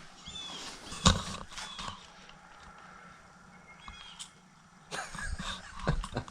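Wiring harness being worked through a car's firewall: a sharp knock about a second in, then knocks and rustling near the end, with a few short, faint high chirps in between.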